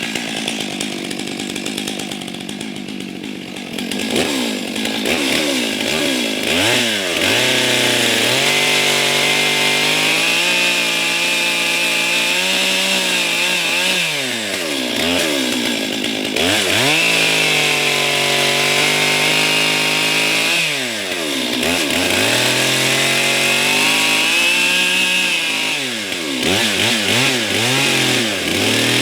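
Gas chainsaw running at full throttle while cutting into a pine trunk for a felling notch and plunge cut. The engine revs drop and climb back several times as the throttle is let off and squeezed again.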